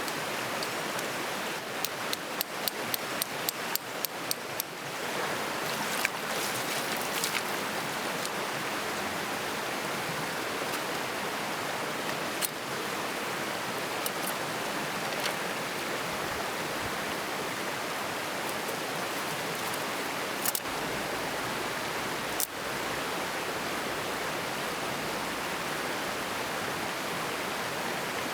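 Steady rushing of a stream. A quick run of about ten sharp clicks comes early, and single sharp clicks follow now and then.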